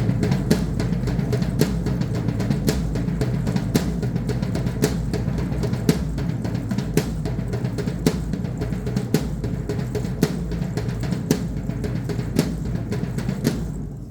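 Drum accompanying a Mexican danza, beaten in a steady rhythm with a strong stroke about once a second and lighter strokes between, over a low booming rumble; it fades out near the end.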